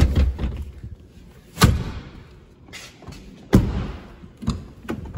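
Heavy thumps from a 2005 GMC Yukon Denali XL's rear seat and doors being handled: three loud ones about two seconds apart, then two lighter knocks near the end.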